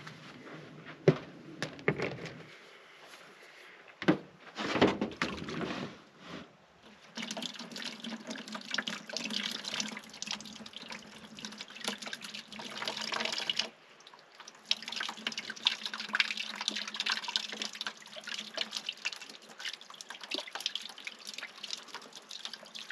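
Water running from the spigot of a portable plastic water jug over potatoes and a tomato being rubbed clean by hand, splashing into a bucket below. A few knocks and clatters come first; the water starts after about seven seconds, stops briefly just past the middle, then runs again.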